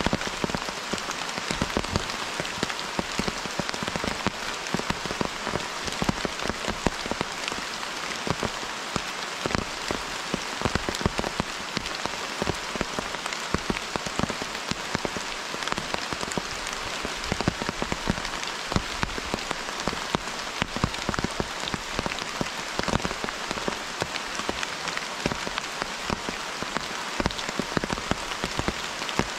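Steady rain falling through the forest, a continuous hiss thick with sharp ticks of drops striking close by.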